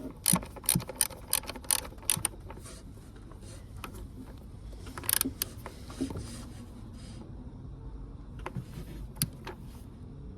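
Socket ratchet clicking in a quick run of strokes for about two seconds as an ignition coil's hold-down bolt is tightened on a V6 engine. A few separate clicks and knocks of tool handling follow near the middle and near the end.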